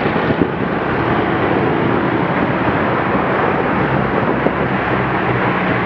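Loud, steady rumble of street traffic, vehicle engines running close by.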